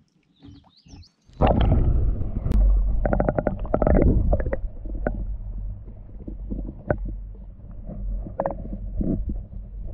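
An action camera plunged into lake water about a second in, its microphone then underwater: a loud muffled low rumble with gurgles and a run of quick clicking knocks, easing off toward the end.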